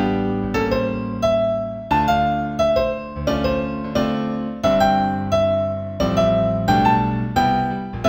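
Gentle New Age piano piece in C major. Single melody notes are struck about every two thirds of a second over low chords, and each fades after it is struck.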